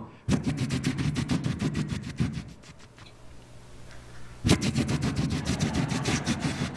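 Theatre audience laughing and applauding in two waves. A burst dies down after about two seconds, then a second, louder one breaks out about four and a half seconds in.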